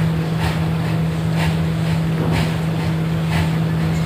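Small Orenstein & Koppel 0-8-0T steam locomotive working a loaded cane train, its exhaust beating slowly at about two beats a second over a steady low hum.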